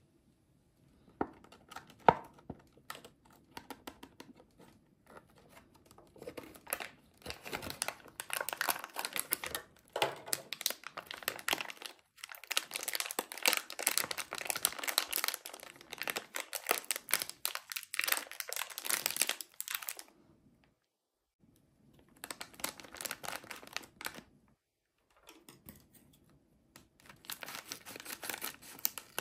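Clear plastic packaging crinkling as hands squeeze and handle it, first in scattered clicks, then in long dense stretches with short pauses. Near the end, scissors cut into the plastic bag.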